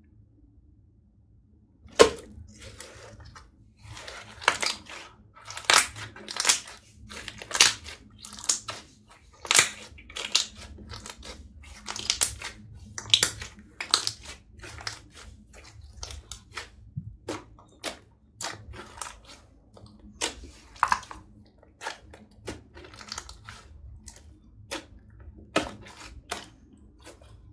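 Sticky clear green glitter slime being kneaded and squeezed by hand, giving an irregular run of wet clicks and pops of trapped air, several a second, starting about two seconds in.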